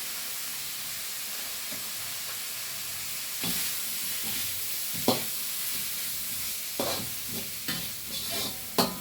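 Snake gourd, tomatoes and spices sizzling in ghee in a pan, a steady hiss. From about three and a half seconds in, a spatula scrapes and knocks against the pan at irregular intervals as the mixture is stirred.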